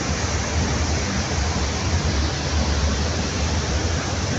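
Steady wind rushing across the microphone on the open deck of a ferry under way at sea, over a constant low rumble from the moving ship.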